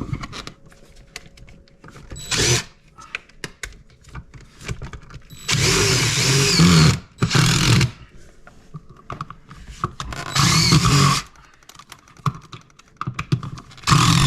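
Impact driver driving screws to fasten an electrical box in the wall, run in five bursts: a short one about two seconds in, two longer ones around six to eight seconds, another around ten to eleven seconds, and a short one at the end.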